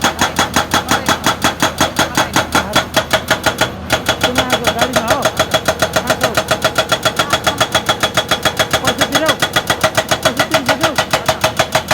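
Excavator's diesel engine running at the roadworks with a steady, rapid pulsing of about six to seven beats a second. The pulsing breaks off briefly a little under four seconds in, then carries on.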